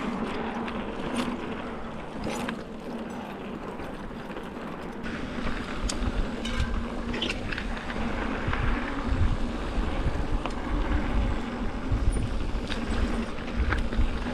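Mountain bike riding along a dirt trail: steady rolling noise with scattered clicks and rattles, and wind rumble on the microphone that grows stronger about halfway through.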